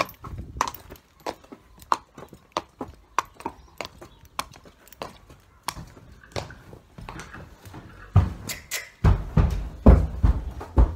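Horse's hooves clopping on paving stones as it is led on a lead rope, a sharp irregular click every half-second or so, then heavy hollow thuds from about eight seconds in as the horse steps up into the trailer.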